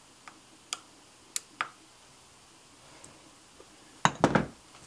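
Short sharp metallic clicks of a 3 mm T-handle hex wrench seated and turned in the engine-mount screws through an aluminium chassis plate, four in the first two seconds, giving the screws their final tightening. A louder clatter of knocks follows after about four seconds.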